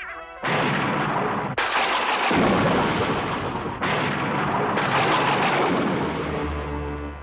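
Cartoon sound effect of four loud explosion-like blasts one after another, each starting suddenly and running on for a second or two before the next cuts in.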